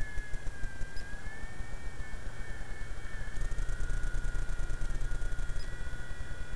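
Radio-controlled model helicopter flying overhead: a steady high whine that wavers slightly in pitch, over a rapid low pulsing noise.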